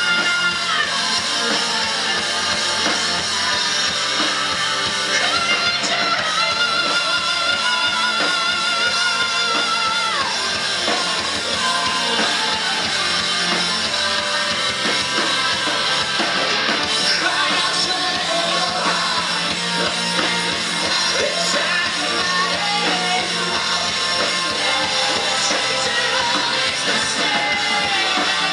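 A rock band playing live: electric guitars, a drum kit and a singer, with long held notes that waver in pitch.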